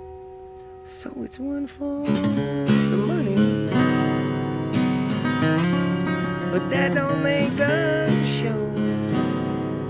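Acoustic guitar playing. A chord rings out and fades, then fresh playing starts about a second in and grows fuller from about two seconds on, with some sliding notes.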